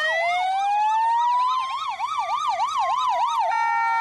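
Two ambulance sirens sounding together. One is a slow wail rising and falling; the other is a fast warble sweeping about three times a second. Near the end the warble gives way to a steady tone.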